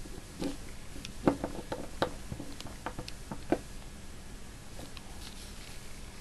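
A run of about a dozen light clicks and taps from small objects being handled on a tabletop, the loudest about a second in. They die away after about three and a half seconds.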